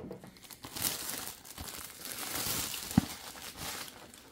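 Clear plastic bag crinkling and rustling as a cardboard box is pulled out of it and the plastic is bunched up by hand, with one sharp tap about three seconds in.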